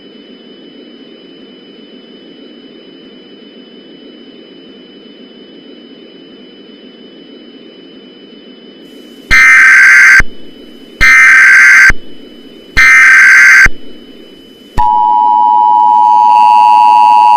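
Simulated Emergency Alert System broadcast tones: a low static hiss, then three short buzzy bursts of SAME data tones (the digital alert header), followed about fifteen seconds in by the loud, steady two-tone EAS attention signal.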